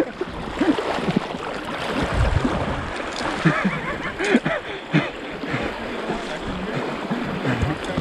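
River current running fast over rocks in a shallow rapid, with gurgles and small splashes close to the microphone.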